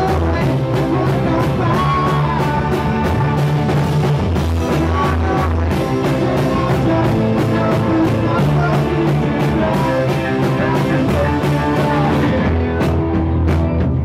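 Live rock band playing: acoustic and electric guitars and bass over drums keeping a steady beat, with a male voice singing. Near the end the bright cymbal wash drops away, leaving sparser drum hits.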